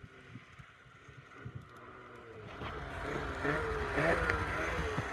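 Snowmobile engine at a distance, faint at first, then growing louder about halfway through as the sled climbs through the trees, its pitch rising and falling with the throttle.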